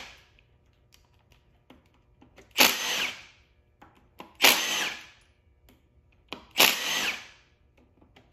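A cordless power tool spinning out the cam tray bolts on an Audi 2.0T TFSI cylinder head in three short runs about two seconds apart, each starting sharply and lasting under a second, as it moves from bolt to bolt to loosen the cam tray.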